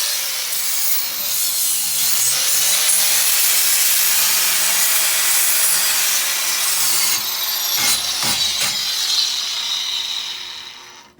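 Angle grinder with a flap disc grinding a burr off the end of an exhaust pipe, running continuously and winding down near the end.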